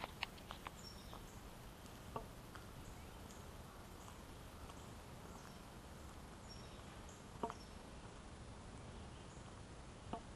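Quiet summer woodland ambience: a steady low background hush with faint, short high chirps every second or so. A few soft clicks stand out, about two seconds in, past the middle and near the end.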